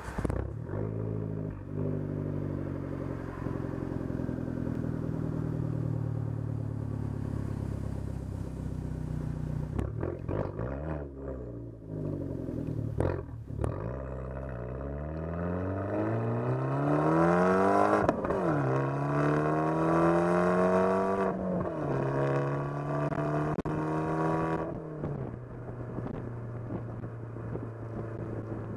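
Fiat 500 Turbo's exhaust heard close at the tailpipe: the 1.4-litre turbo four-cylinder runs steadily at first, then accelerates with its pitch climbing through two gears and dropping sharply at each upshift, before settling into a lower steady cruise.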